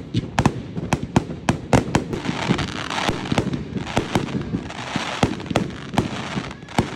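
Fireworks display going off: a quick run of sharp bangs and pops, several a second, with a hissing crackle filling the middle seconds.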